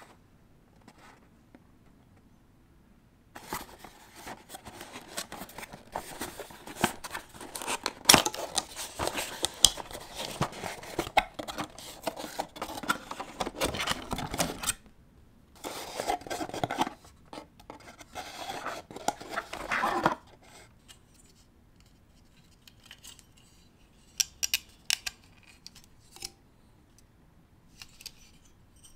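Cardboard and plastic packaging being handled as an AMD Wraith Stealth CPU cooler is worked out of its cardboard insert, with dense rustling and scraping. The rustling starts a few seconds in and stops about two-thirds of the way through, and a few scattered light taps follow.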